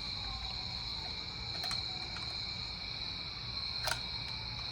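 A few small clicks of a metal pick prying at a CR2430 coin-cell battery in a plastic display housing, faint at first with a sharper click near the end, over a steady high-pitched whine in the background.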